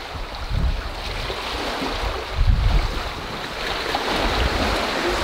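Wind buffeting the microphone in gusts over the steady rush of water past the hull of a sailing catamaran under sail.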